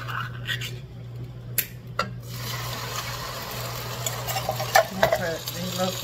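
A few sharp clicks as ring-pull lids are peeled off cans of peaches, then, about two seconds in, a steady sizzling hiss starts up from the hot pot of melted butter and brown sugar.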